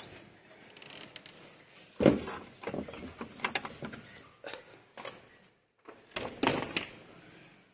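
A wooden door being handled, its metal barrel bolt sliding and rattling: a run of knocks and clacks, the loudest about two seconds in, with another cluster a little past six seconds.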